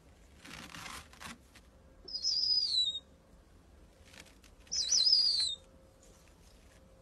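An owl giving two high, wavering screeching calls, each under a second long and dropping in pitch at the end, about three seconds apart. They are preceded by a short burst of rustling noise about half a second in.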